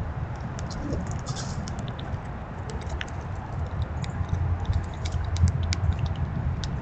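Black squirrels cracking and chewing seeds close to the microphone: an irregular run of sharp little clicks over a low rumble.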